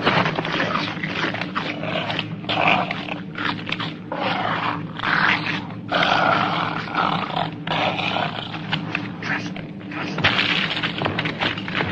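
Film sound effects of dinosaurs roaring and bellowing, a string of calls about a second each, some sliding in pitch, over a steady low hum.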